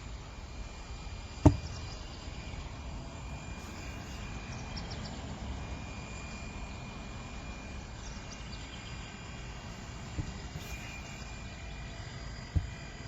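Steady outdoor background noise with a faint, steady high tone, broken by one sharp, loud knock about a second and a half in and two softer knocks near the end.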